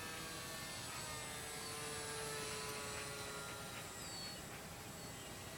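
Small electric R/C airplane in flight, its motor and propeller giving a faint, steady whine whose pitch drifts slowly as it flies around.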